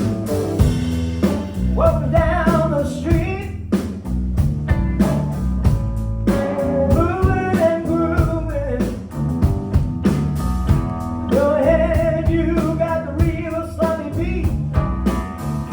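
Live blues-rock band playing: a male lead vocal sings in three phrases over electric guitar, bass and a drum kit keeping a steady beat.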